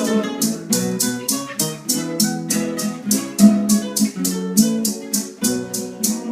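A bolero trio playing an instrumental guitar passage: picked acoustic guitar notes carry the melody over strummed chords, with maracas shaking a steady beat.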